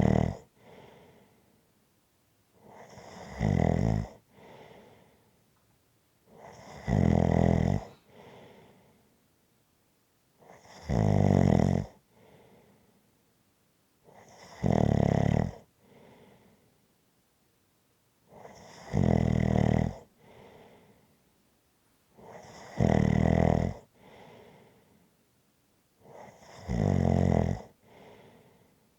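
A sleeper snoring steadily in a slow, even rhythm: about eight loud, buzzing snores, roughly one every four seconds, each followed by a fainter breath.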